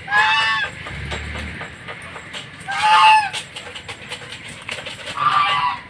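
Domestic fowl calling three times, each a short arched cry a little over half a second long, spaced about two and a half seconds apart.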